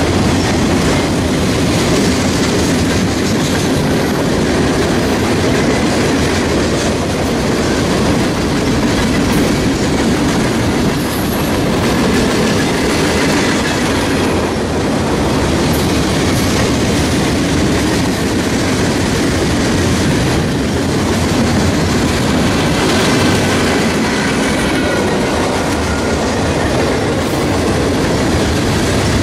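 Mixed freight train's cars rolling past close by: a loud, steady rumble and clatter of steel wheels on the rails.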